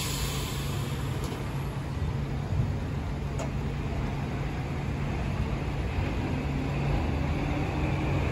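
Vintage tram running past along the street over city traffic noise, with a steady low hum and a sharp click right at the start.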